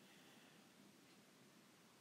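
Near silence: faint room tone with a low hiss.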